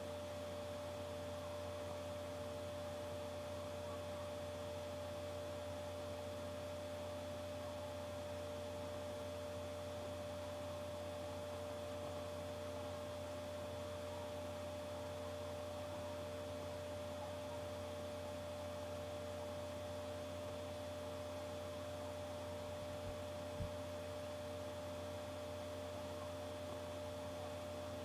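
Steady electrical hum: a few constant tones over a faint even hiss. There is one short click about three-quarters of the way through.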